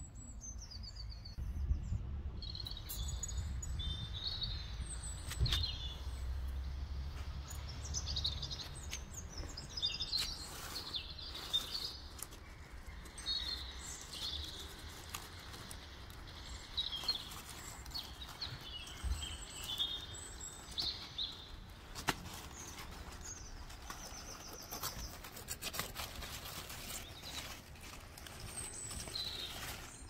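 Garden birds chirping and singing in many short, varied phrases, with a low rumble underneath for the first several seconds and a few sharp clicks.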